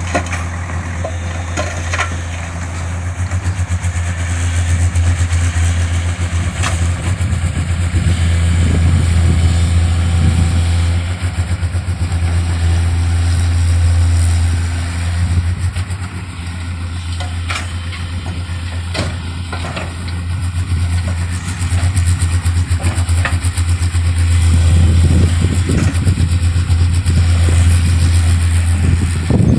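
Tata Hitachi EX110 excavator's diesel engine running steadily with a deep drone that swells louder and eases off again several times, with a few sharp knocks and clanks along the way.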